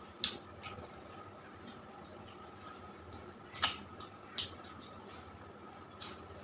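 Close-up eating sounds of a person chewing rice and chicken curry eaten by hand: several sharp mouth clicks and smacks, the loudest about three and a half seconds in, over a faint steady hum.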